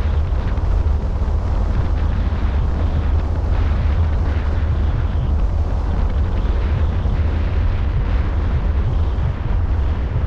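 Wind buffeting the microphone of a camera mounted on the roof of a moving car: a loud, steady low rumble with a rushing hiss over it.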